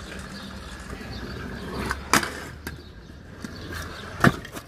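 Stunt scooter wheels rolling over rough pavement with a steady rumble. A sharp clack comes about two seconds in, and a louder clack a little after four seconds as the scooter comes down from a jump.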